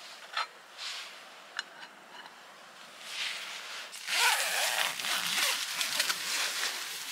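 Nylon tent door zipper being pulled, in several rasping strokes from about three seconds in, with the tent fabric rustling. A few light clicks come before it.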